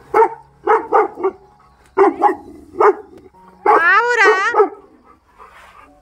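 Young Labrador barking: a run of short barks over the first three seconds, then one longer bark with a wavering pitch about four seconds in.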